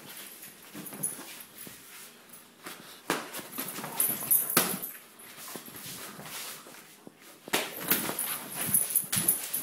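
German Shepherd puppy making play noises while tugging on a toy, in irregular bursts that are loudest around the middle and again near the end.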